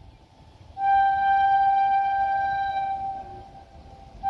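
Horn of an approaching WAP7 electric locomotive: one long, steady, high-pitched note starting suddenly about a second in, holding for about two seconds and fading, then sounding again near the end.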